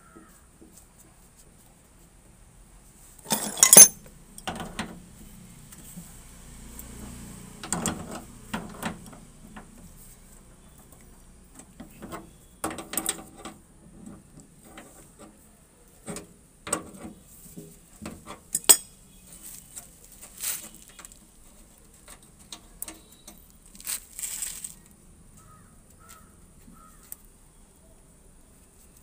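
Brass refrigerant fittings and metal tools at an air conditioner outdoor unit's service valve clinking and clicking, in scattered sharp knocks. The loudest come about four seconds in and again near nineteen seconds.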